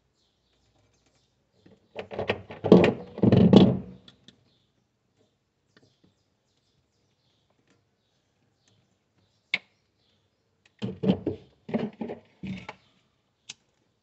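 Clunks and rustling from hands working with wires and tools at close range, in two bursts, about two seconds in and again about eleven seconds in. There is a single sharp click in the quiet middle, and another just before the end as a lighter is struck.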